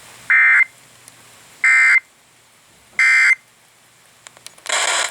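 Emergency Alert System end-of-message data tones: three short, identical warbling bursts of digital signalling, about a second and a third apart, marking the close of the warning. Near the end a louder hiss comes in.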